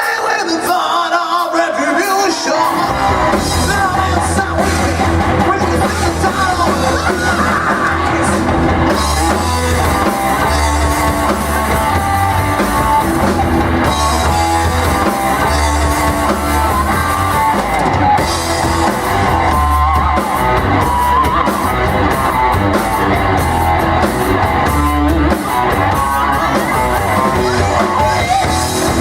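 A rock band playing live, with singing over electric guitar and drum kit. A deep bass line comes in about three seconds in.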